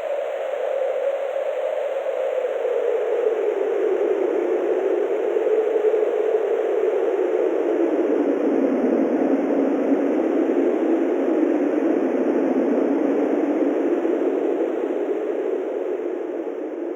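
Synthesized wind: a steady rush of filtered noise whose whistling band slowly sinks in pitch over the first half, holds low, then fades near the end.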